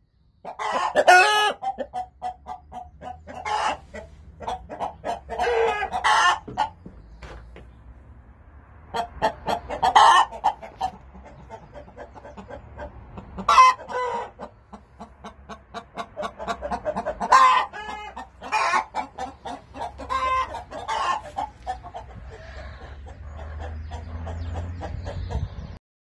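Domestic chickens clucking, with a rooster crowing several times in long, loud calls.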